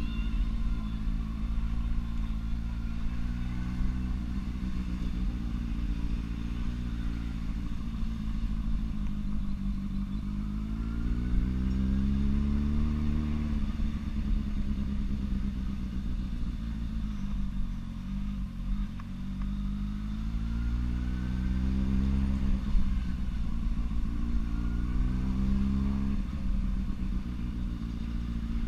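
Motorcycle engine heard from on board, running at low road speed. Its note rises and falls with the throttle: it climbs about a third of the way in, dips a little past the middle, and climbs again about three quarters of the way through.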